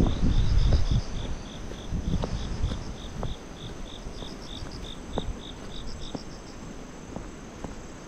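A cricket chirping in a steady pulse, about three chirps a second, which stops about six seconds in. Wind buffets the microphone with a low rumble, heaviest in the first second and again around two seconds in.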